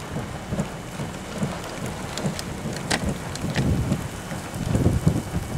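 Steady rain with scattered drops ticking sharply, over a low rumble.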